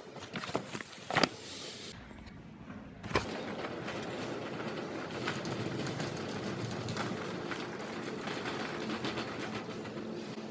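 Shopping trolley pushed across a supermarket floor: a steady rattle of its wheels and wire basket that sets in about three seconds in, after a few knocks and a short lull.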